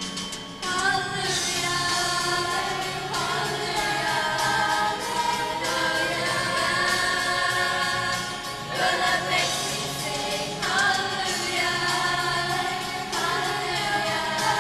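A school choir singing in long held phrases, coming in fuller just under a second in.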